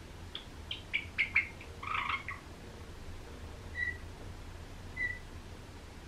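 Java sparrow giving short calls: a quick run of sharp chirps, then a fuller call about two seconds in, followed by two single short notes about a second apart.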